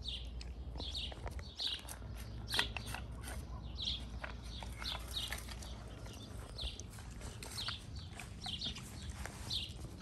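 Pit bulls eating from a steel bowl, with scattered short clicks. A bird chirps about once a second in the background over a low steady rumble.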